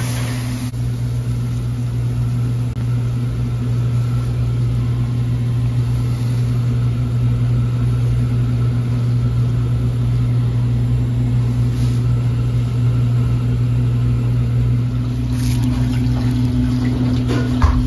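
Steady, loud low machine drone with a constant hum, like a running motor or fan; a short knock sounds near the end.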